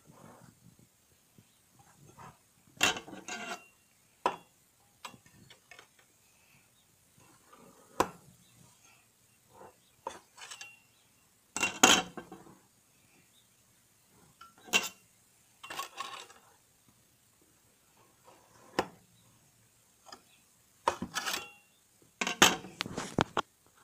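Crinkle cutter knocking and scraping against a metal slotted soap-cutting box while a loaf of soap is sliced into bars: about ten separate, irregularly spaced metallic clanks, several with a short ring.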